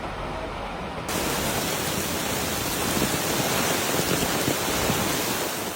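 Heavy torrential rain: a steady, even rushing hiss that turns abruptly louder and fuller about a second in.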